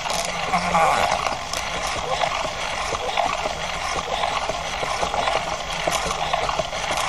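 Hexapod robot's small hobby servos creaking and grinding as its legs step; their gears are nearly worn out. A dense, continuous run of clicks and scrapes.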